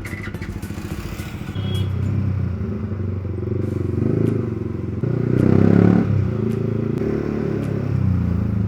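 Yamaha R15 V3's single-cylinder engine running through a loud aftermarket exhaust while riding, swelling louder about five seconds in as it revs up and then settling back.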